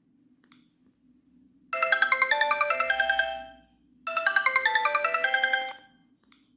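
Sony Ericsson K770i mobile phone playing one of its ringtones: a short, quick run of melodic notes that starts a couple of seconds in and is played twice with a brief gap between.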